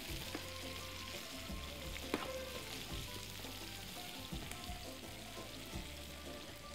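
Sliced red onions sizzling in hot oil in an aluminium pan as they are stirred, with the spoon now and then clicking against the pan. The onions are freshly added and frying down to soften.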